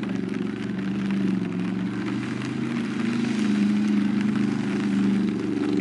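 1980 Chevrolet Tahoe's 5.7 HEMI V8 engine running under load as the truck pushes through deep mud, its pitch rising a little about three seconds in and easing again near the end, over the spatter and crackle of mud thrown by the tyres.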